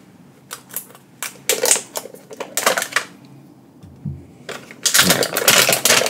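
A foil Pokémon booster pack being cut into and handled: a string of short clicks and rustles, then dense crinkling of the wrapper near the end.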